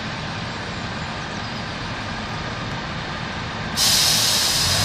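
Northern Class 142 Pacer diesel multiple unit at the platform, its underfloor diesel engine giving a steady low rumble. Near the end a loud hiss starts suddenly and keeps going.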